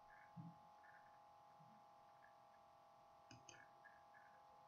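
Near silence: faint room tone with a steady electrical whine and a few faint clicks.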